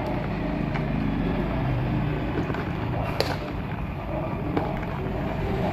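A few light clicks of a metal slotted spatula against an aluminium pot and a plastic tub as boiled chicken feet are lifted out of the water, the sharpest about three seconds in, over a steady low rumble.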